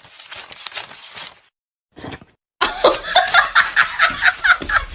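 A person laughing hard in a rapid string of pitched bursts, starting about two and a half seconds in after a short pause.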